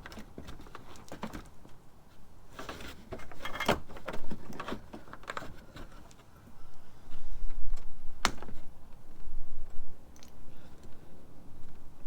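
Scattered light clicks and taps of handling, with one sharp click about eight seconds in and a low rumble starting about six and a half seconds in.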